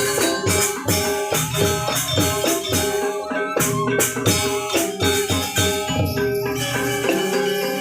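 Balinese gamelan playing dense, rapid interlocking strokes on bronze metallophones over drums, with jingling cymbals.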